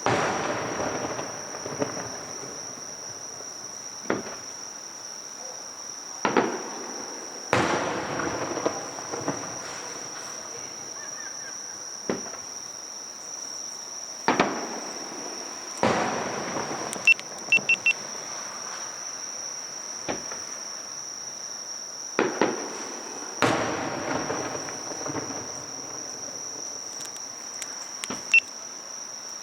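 Aerial fireworks bursting every few seconds, each a sharp bang trailing off into an echoing rumble, with a few quick crackles partway through. A steady, high-pitched insect drone runs underneath.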